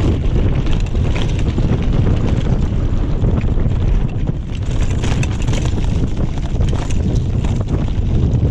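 Mountain bike ridden along a rough forest trail: wind rumbling steadily on the microphone, with dense small clicks and rattles from the bike and its tyres on the ground.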